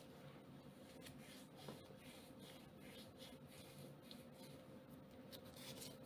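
Near silence with faint rustling and soft ticks of paper banknotes being handled on a tabletop, over a faint steady hum.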